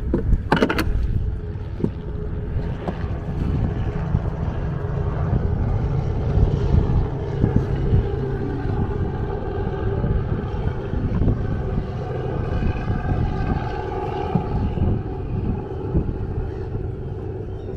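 A boat's engine running with a steady low rumble, with wind buffeting the microphone and a sharp knock just after the start.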